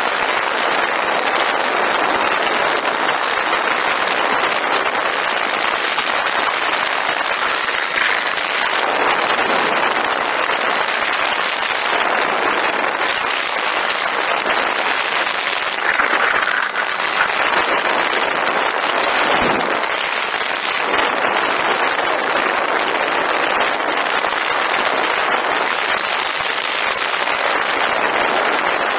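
Steady rushing noise of wind and propeller picked up by the onboard camera of a Volantex Ranger 2000 FPV plane in flight.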